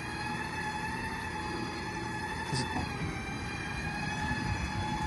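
Winch motor whining steadily as it pulls a Bedford Green Goddess fire engine onto a low loader, over a low rumble, its pitch sagging slightly around the middle. A brief high click about halfway through.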